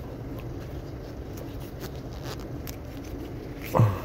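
Hands handling and stretching a doubled loop of cut rubber inner tube against a steady low background rumble. Near the end there is one short, loud sound that drops sharply in pitch.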